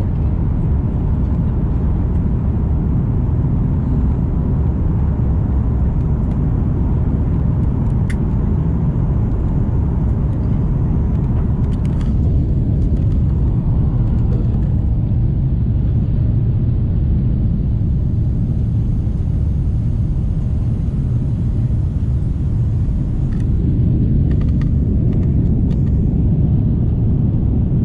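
Steady low rumble of a jet airliner's engines and rushing air, heard from inside the passenger cabin during the climb just after takeoff, with a few faint clicks.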